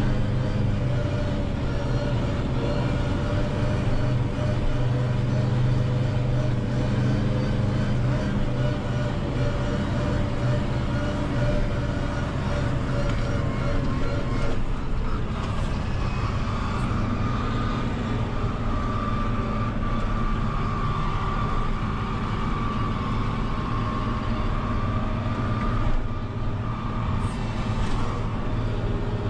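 Valtra N 121 tractor's diesel engine running steadily under load, heard from inside the cab while mowing, with a steady whine over the engine note that changes pitch about halfway through.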